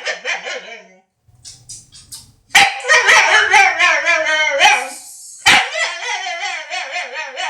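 Dog making long, wavering, pitch-bending vocal calls, with a short pause about a second in before they start again.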